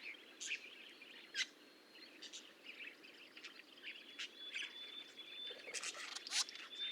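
Budgerigars chirping faintly in scattered short, high chirps, with a thin steady high tone running through the second half.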